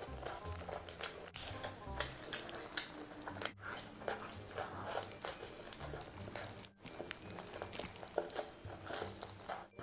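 Close-miked eating sounds of a woman chewing and biting into spiced chicken and rice eaten by hand: many irregular short clicks and smacks, with some crunching.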